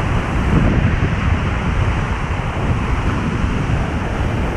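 Surf breaking and washing up onto the sand, with wind buffeting the microphone, a steady noisy wash with no distinct events.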